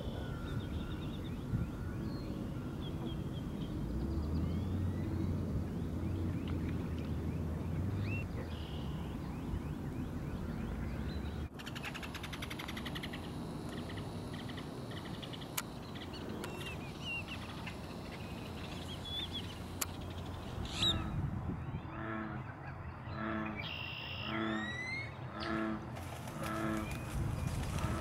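Wading birds calling at a mixed nesting colony of egrets, herons and ibises: scattered short chirps and squawks over a steady low rumble. Near the end comes a run of about ten evenly spaced calls, roughly one and a half a second, with rising whistled notes over them.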